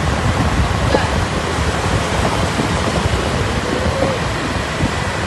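Steady noise of road traffic, with wind rumbling on the microphone.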